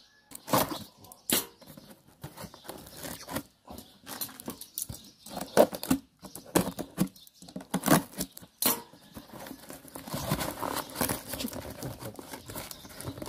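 Cardboard boxes and packaging handled and opened by hand: irregular knocks and scrapes, then a longer stretch of rustling and tearing near the end.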